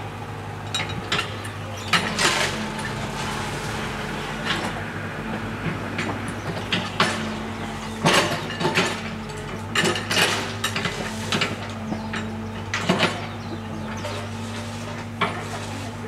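A steady low mechanical hum with many short, irregular clicks and knocks over it, a few of them louder.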